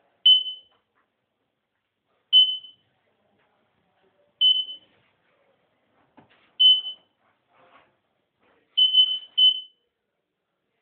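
Electronic beeper giving short, high-pitched single-tone beeps about every two seconds, with a quick double beep near the end: a guide signal for a blindfolded person finding their way.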